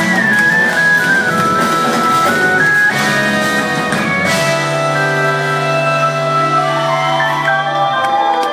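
Live jazz-fusion band music: drums and a stepping lead melody, then from about halfway the band holds a long sustained chord over a steady bass note.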